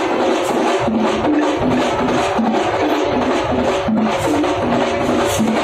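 Thampola festival percussion ensemble playing loud, fast drumming with sharp stick strikes in a steady rhythm.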